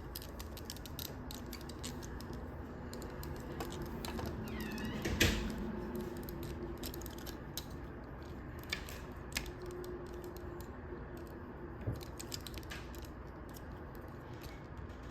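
Small plastic clicks and rattles of a Transformers action figure's joints and parts being moved and repositioned by hand, with one louder click about five seconds in.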